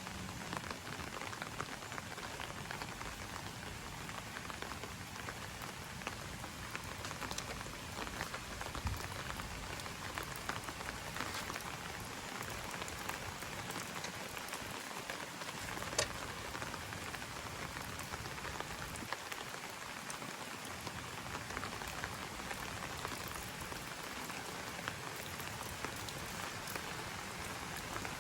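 Steady rain pattering, a continuous hiss dotted with many small drop ticks and a sharper single tick about 16 seconds in.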